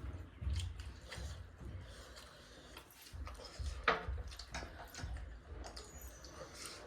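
Faint eating sounds at a table: scattered small clicks and soft knocks of plates and handling as momos are eaten, with one sharper click about four seconds in.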